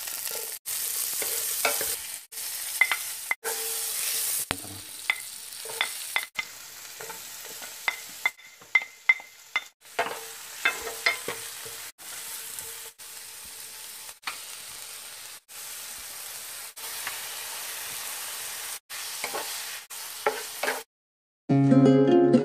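Vegetables stir-frying in hot oil in a pan: a steady sizzle with sharp knocks and scrapes of a wooden spatula against the pan, broken by several brief gaps. Acoustic guitar music comes in near the end.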